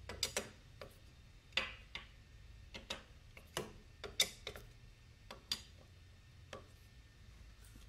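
Socket wrench on an extension undoing the small 8 mm bolts of a Yamaha Xeon scooter's cover behind the CVT: a dozen or so sharp metallic clicks at uneven intervals.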